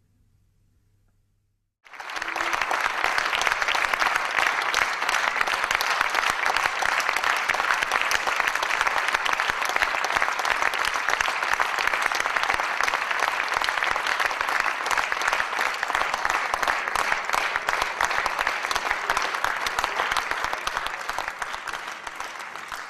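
Audience applauding. The clapping comes in suddenly about two seconds in, after near silence, stays steady, and eases a little near the end.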